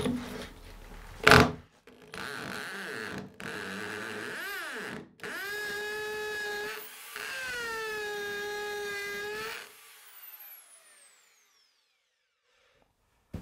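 A Bosch drill with a masonry bit against a concrete wall, run in four bursts of a steady motor whine with short breaks, then a falling whine as it spins down. The bit is not getting into the wall. There is a brief loud noise about a second in.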